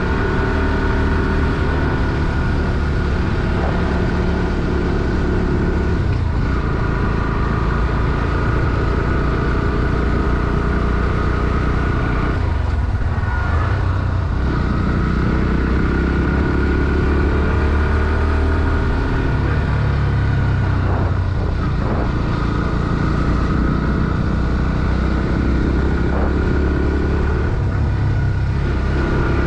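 Bajaj Pulsar NS160's single-cylinder four-stroke engine running under load on the move, its pitch rising and falling several times with brief dips around the middle, as in throttle changes and gear shifts.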